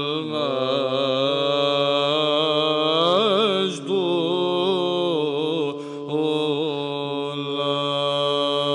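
Arabic Byzantine chant in the sixth tone: a male cantor sings a slow, ornamented melody over a steady held drone (the ison). The melody pauses briefly for breath about 4 and 6 seconds in.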